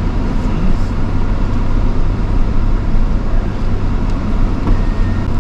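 Vehicle engine and drivetrain running with a steady low rumble, heard from inside the cabin while driving on an off-road trail.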